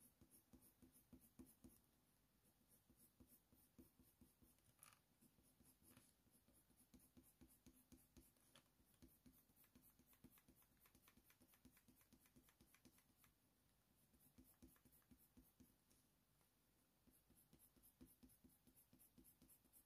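Very faint scratching of a Faber-Castell Polychromos coloured pencil (Warm Grey III) on hot-press watercolour paper, in quick, short, repeated strokes laid along the fur direction.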